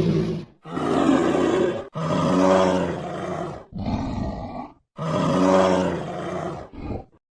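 A large animal roaring: a run of deep roars, each a second or two long, broken off sharply between them.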